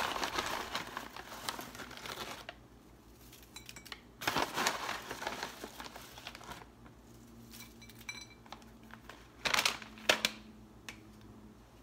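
Plastic snack bag of wonton strips crinkling as it is handled and reached into. The crinkling comes in bursts: a long stretch at first, then two short bursts about four and nine and a half seconds in.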